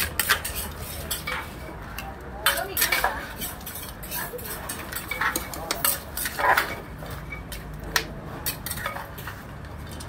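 A metal spoon scraping and clinking against a large mortar as a seafood papaya salad is stirred and scooped out. Sharp clinks are scattered irregularly throughout.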